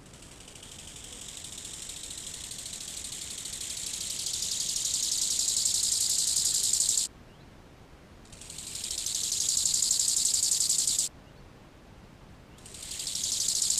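Grasshopper stridulating: a high, fine buzz that swells over about seven seconds and stops abruptly, then a second bout of about three seconds, and a third that starts near the end.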